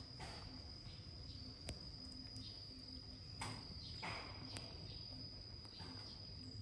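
A cat eating cooked rice from a plastic plate: faint chewing and smacking that comes a few times, with a couple of sharp clicks, over a steady high-pitched insect drone.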